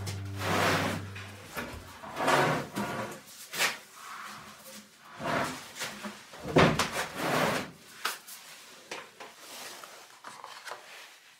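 A heavy round wooden tabletop being shifted, lifted and tipped on a wooden workbench, giving a series of scrapes and knocks of wood on wood. In the last few seconds come lighter clicks and rattles as a plastic router-bit case is opened.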